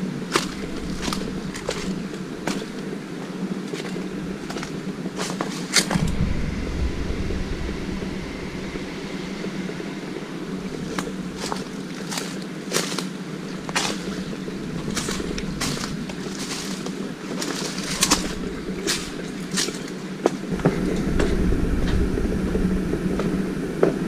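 Footsteps crunching over leaf litter and debris, sharp irregular steps about one or two a second, over a steady low hum. Wind rumbles on the microphone briefly about six seconds in and again near the end.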